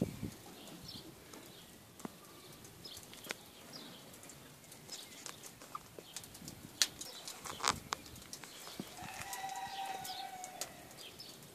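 Wood fire crackling in a steel barbecue firebox: faint, irregular sharp pops and snaps, with a brief steady tone about nine seconds in.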